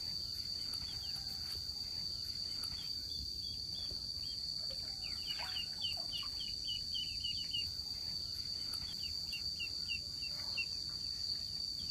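A steady, high-pitched insect drone, with ducklings peeping in quick runs of short, falling chirps, thickest in the middle of the stretch.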